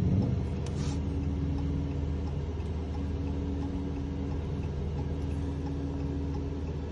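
Steady low hum from the parked car, with the faint regular ticking of its hazard flashers.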